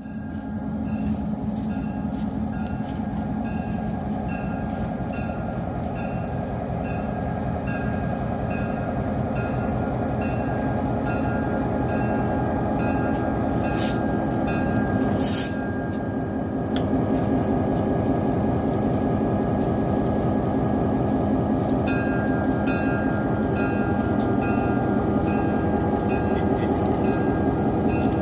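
EMD GP38-2 diesel-electric locomotive with its 16-cylinder two-stroke engine running close by: a steady engine sound with a regular ticking over it. It comes in suddenly, rises over the first second, and steps up again about seventeen seconds in.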